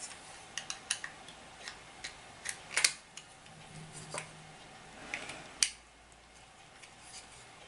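Small screwdriver and fingers working the clips of a black plastic quartz clock movement case: scattered light plastic clicks at an uneven pace, with two sharper snaps about three seconds in and near six seconds.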